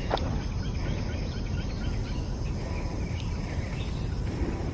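Outdoor ambience: a steady low rumble with faint chirps of birds or insects scattered through it.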